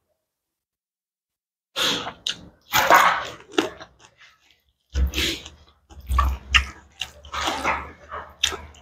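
Close-miked eating sounds from a clip-on microphone: chewing and mouth noises in irregular bursts, starting about two seconds in, with a low rumble from about five seconds on.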